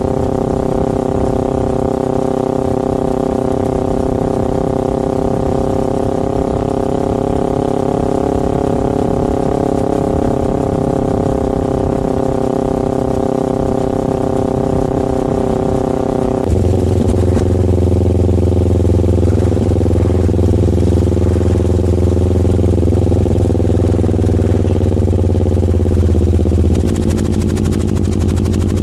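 Motorcycle engine running at a steady pitch. About halfway through, its note abruptly turns deeper and a little louder, then slowly drops in pitch, easing off again shortly before the end.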